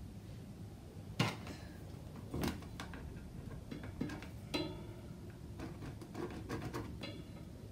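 Metal gate hardware clinking and knocking as it is fitted at the wall mount: several sharp clinks, some ringing briefly, the loudest about a second in, then lighter ticking.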